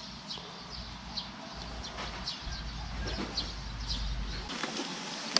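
Small birds chirping faintly and repeatedly over a low wind rumble on the microphone, which drops away near the end.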